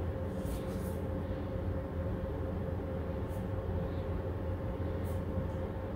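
Steady low mechanical hum with a held tone running throughout. A few faint, short scratches of a pen writing on paper come through about half a second in, again around three seconds, and once near the end.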